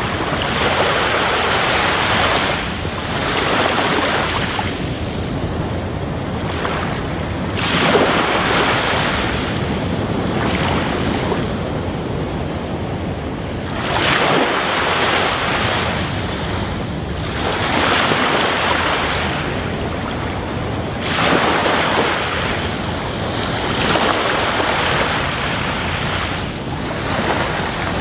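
Rushing water noise that swells and fades every two to three seconds, like surf.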